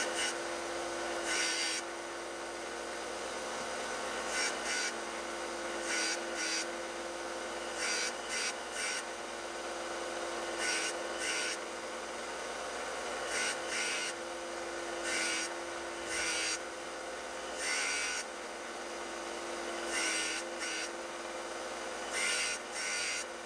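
A power sander running steadily, with short rasping bursts every second or two as the broken tip of a Gerber 450 knife blade is pressed to the abrasive and ground down from the spine to reshape the tip.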